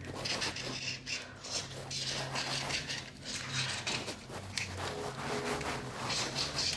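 A bundle of Posca paint markers scribbling fast over paper: quick, irregular scraping strokes of the tips rubbing across the sheet.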